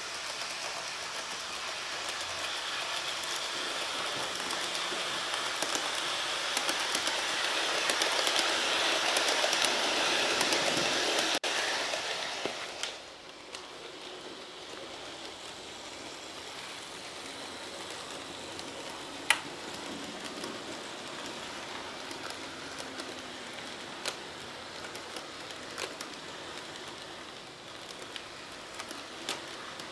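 Model railway train running on sectional track, a steady whirring rattle of motor and wheels that grows louder and then cuts off suddenly about eleven seconds in. After that comes a quieter rolling with scattered light clicks of wheels over the rail joints as a freight train comes round the loop.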